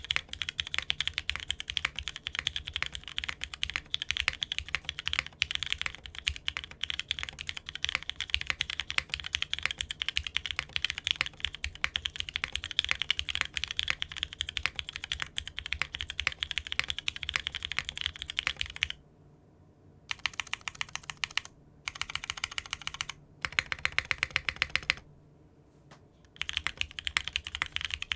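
Rapid, continuous typing on a mechanical keyboard fitted with Cherry-profile keycaps, with many keystrokes a second. The typing stops briefly twice, about two-thirds of the way in and again near the end.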